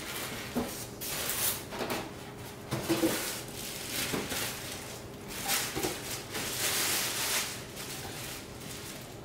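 Cardboard box and plastic packaging rustling and crinkling as items are pulled out, with a few knocks about three seconds in. Near the end, a plastic bag crinkles around a wrapped metal part.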